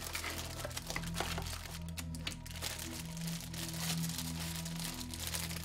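Clear plastic parts bag holding a tree of chrome-plated model parts crinkling as it is handled, over background music with steady low notes.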